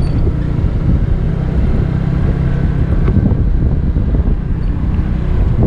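Kymco Xciting 250i maxi-scooter's single-cylinder four-stroke engine running steadily under way, with wind noise on the microphone.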